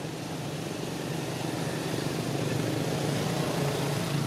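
A motor's steady drone over a low hiss, slowly growing louder.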